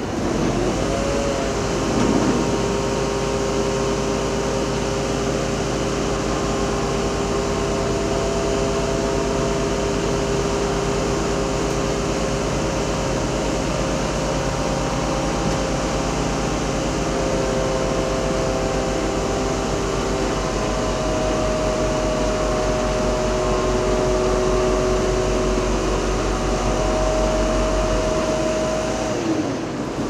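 Asphalt paving machinery running steadily: diesel engine rumble with several steady hydraulic and fan whines whose pitch shifts a little around two-thirds of the way through.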